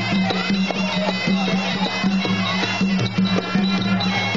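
Traditional Khmer boxing ring music: a reedy sralai oboe playing a wavering melody over steady drumbeats.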